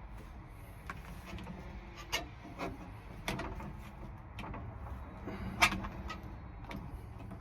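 Scattered sharp clicks and taps of a tool and metal parts inside a car door as a stuck part is worked loose, the loudest click about two-thirds of the way through.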